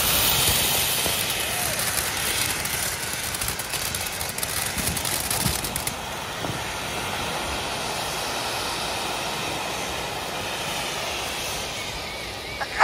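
Two safe-and-sane ground fountain fireworks spraying sparks with a steady hissing rush and dense crackling; the crackle drops away about six seconds in, leaving a quieter hiss. A single sharp pop right at the end is the loudest moment.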